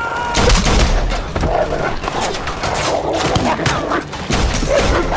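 Gunfire in quick succession, many shots and impacts close together, heaviest about half a second in, with a dog barking among the shots.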